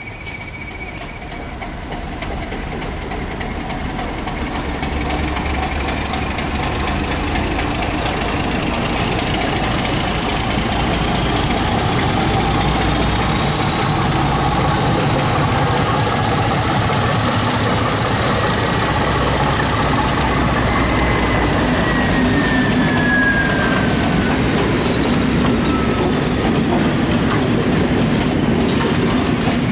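Diesel locomotive hauling a train of Class 421 '3CIG' coaches, growing louder as it draws near over the first few seconds, then passing close with its engine running steadily and the coach wheels rolling on the rails. A high thin whine rises slowly and falls again in the second half.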